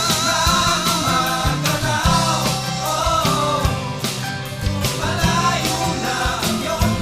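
Background music: a Filipino pop-rock song with a steady drum beat, bass, guitar and singing.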